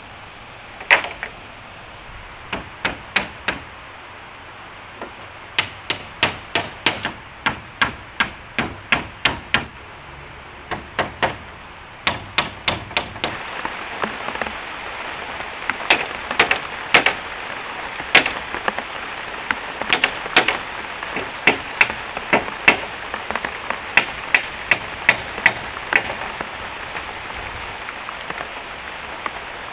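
Hammer striking wood: runs of sharp blows at about two a second, with short pauses between runs. A steady hiss of rain grows louder about halfway through.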